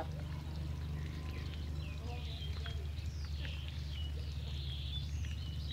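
Birds chirping and twittering in quick short calls, over a steady low hum.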